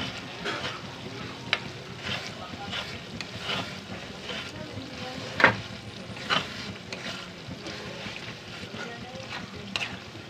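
Tomato sauce frying in a pan while a spoon stirs it, scraping and clicking against the pan at irregular intervals. There is one sharper knock of spoon on pan about halfway through.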